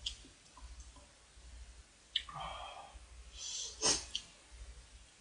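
Close-up eating sounds of noodles being served and eaten with metal chopsticks: scattered clicks of the chopsticks on the bowl and pot, a short hiss of a slurp, and the sharpest click a little before four seconds in.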